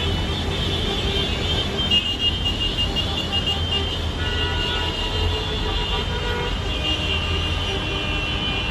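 Traffic of a motorcycle and car convoy: engines running under repeated horn beeps.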